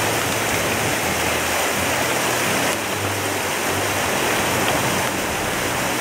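Shallow mountain creek rushing steadily over rocks and riffles.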